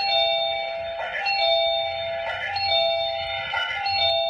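Electronic ding-dong doorbell tone from a smart Wi-Fi video doorbell system: a higher note dropping to a lower one, repeating about every 1.3 seconds, four times. It is the ring that signals the doorbell button has been pressed.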